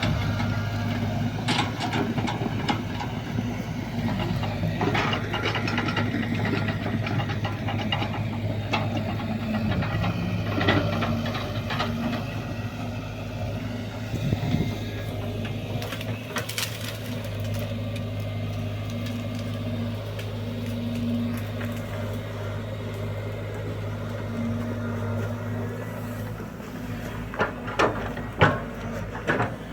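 Excavator's diesel engine running steadily, with scattered metallic clanks and scrapes while it digs, and a few sharp knocks near the end.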